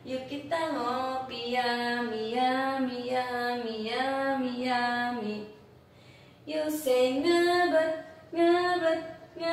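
A woman singing in Indonesian: a phrase of long, slowly gliding held notes, a brief pause a little past the middle, then a higher phrase of shorter repeated notes.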